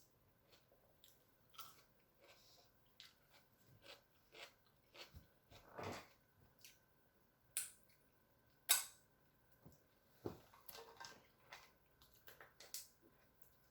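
Close-up eating sounds of a seafood boil: quiet chewing with scattered sharp clicks and cracks of shellfish shells being handled and broken, the loudest crack about nine seconds in.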